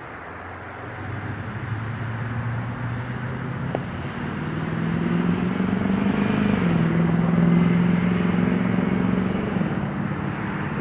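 A motor vehicle going by on the road: engine hum and tyre noise build over several seconds, drop in pitch about two-thirds of the way in, and ease off near the end.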